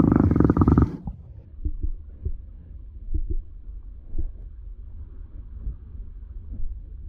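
Underwater sound in a swimming pool heard through a submerged camera: a loud rush of splashing and bubbles for about the first second, then a muffled low rumble with a few soft knocks.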